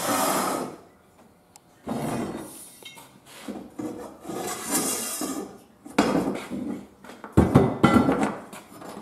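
Metal tree-stand rifle rails being slid, scraped and set down on a plywood tabletop, with several sharp knocks of metal on wood, the loudest about seven and a half seconds in.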